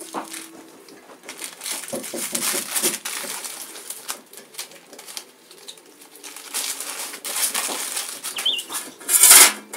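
A paper stencil mask being peeled off a steel saw blade and bunched in the hand: irregular rustling and crackling, with a loud crumpling burst near the end.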